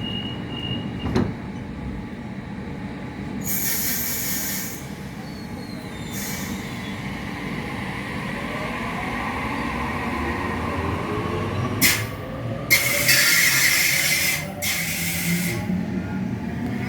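Electric suburban train at a station platform: a steady rumble on the rails, with several separate bursts of hiss and a faint whine that glides in pitch partway through.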